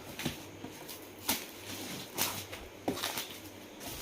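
Gift box packaging being handled and worked open: a few short crackles and clicks, roughly one a second.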